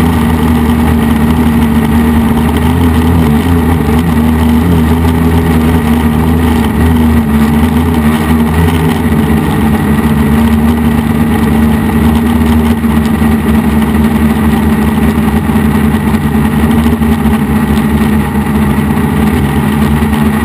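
DJI F450 quadcopter's brushless motors and propellers buzzing steadily in flight, a loud drone with a slightly wavering pitch.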